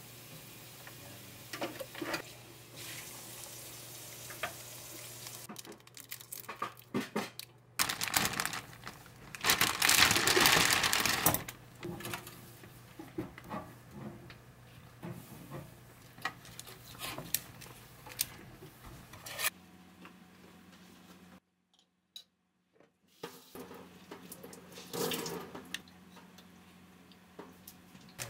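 Kitchen sounds: a pot of water simmering on an induction hob over a steady low hum, then water running loudly from a tap for about three seconds. After that come light clicks and taps as wooden skewers and fish cakes are handled on a cutting board.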